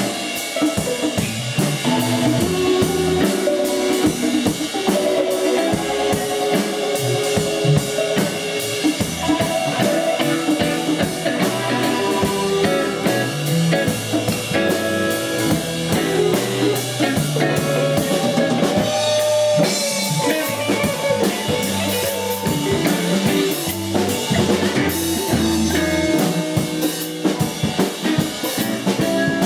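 Rock band playing live, drum kit with snare and bass drum driving a steady beat under guitar.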